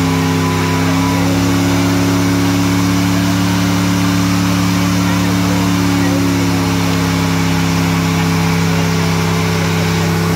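GMC compact pickup's engine held at steady high revs during a burnout, spinning its rear tyres in a cloud of smoke. The pitch stays constant throughout.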